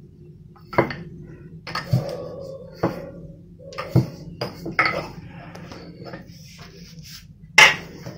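Wooden rolling pin rolling out small semolina dough discs on a granite countertop: a soft rolling rustle broken by sharp knocks roughly once a second as the pin strikes and is set down on the stone.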